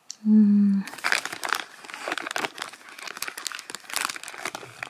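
Plastic sweet packet crinkling as it is handled, a dense run of irregular crackles from about a second in. Just before, a short hummed note from a voice.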